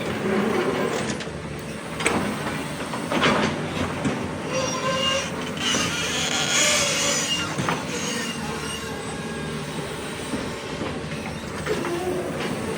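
Hydraulic excavator working in rock: engine running under load with metal clanks and knocks, a couple of them sharp, and a high metallic squealing about halfway through.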